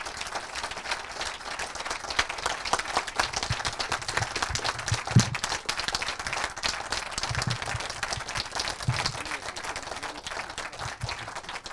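Small audience applauding steadily, tapering off near the end.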